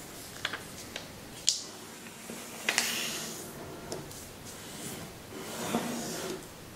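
Sheet of Kami origami paper being handled and folded by hand: a few sharp crackles, then two longer stretches of rustling as the paper is slid and creased, about three seconds in and again near the end.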